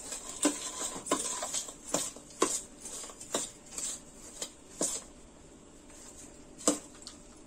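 Steel spoon stirring a dry, crumbly flour-and-nut mixture in a stainless steel bowl, scraping and clinking against the metal about once or twice a second. It goes quieter for a while, then one louder clink near the end.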